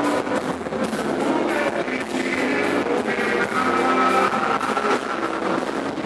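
Live band music: guitar over steady percussion strikes.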